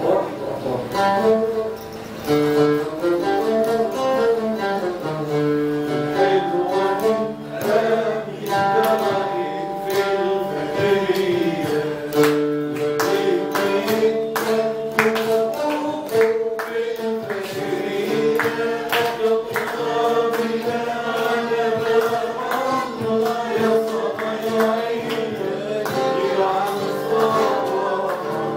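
Oud played with plucked and strummed notes while a man sings a melody along with it.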